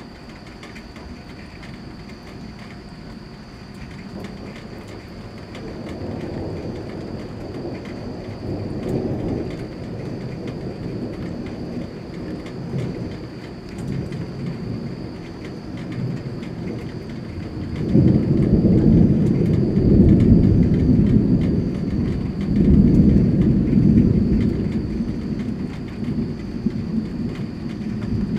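Rolling thunder: a long, low rumble that builds slowly, breaks out much louder about two-thirds of the way through, swells once more and then starts to die away, over steady rain.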